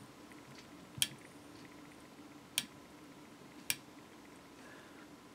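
Three light, sharp clicks, spaced a second or so apart, from a rotary fly-tying vise and tools being handled, over a faint steady hum.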